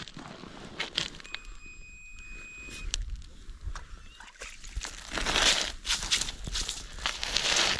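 A perch is hauled up through an ice-fishing hole and landed on the ice: crunching slush and ice, and the fish flapping, loudest over the last three seconds.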